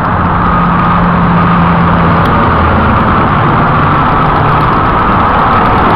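Steady motor-vehicle noise close by: an engine running with a constant low hum over road noise.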